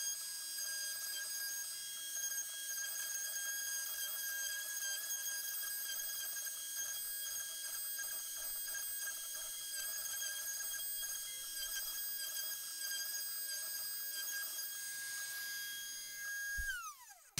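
Shapeoko 3XL CNC router's spindle whining steadily at high speed while its bit carves into the wooden plaque, then winding down with a falling whine near the end as the carving job finishes.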